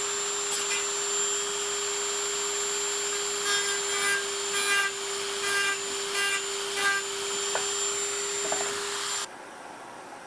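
Dremel rotary tool with a thin abrasive cut-off disc running at a steady whine, the disc grinding into the metal of a copper pan's rim in a series of short scrapes. The motor cuts off about nine seconds in.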